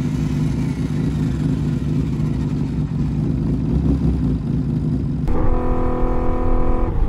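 Honda CBX1000 inline-six motorcycle engine running at low revs with an even, low rumble. About five seconds in it switches abruptly to a steady, higher-pitched engine note heard from on board while cruising at constant speed.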